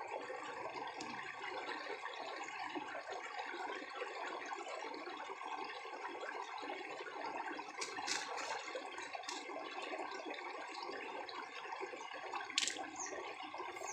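Steady rush of running water, with a few sharp clicks about eight seconds in and near the end.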